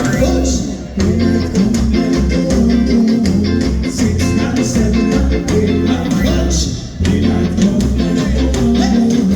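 Ska band playing live: bass guitar, guitar and drums, with brief drops in the music about a second in and again near seven seconds.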